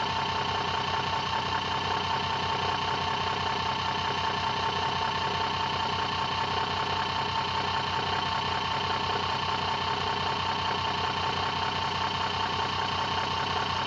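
Homemade brushless DC motor and microwave-transformer-coil charging machine running steadily at low RPM: a constant mechanical hum with a steady high whine.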